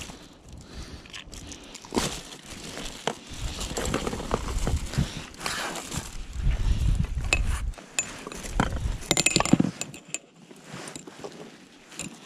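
Handling noise from pliers working a deeply swallowed hook and live bait out of a pike's throat: scattered small metal clinks and clicks from the pliers and the wire rig, with rustling, and a quick run of clicks about nine seconds in.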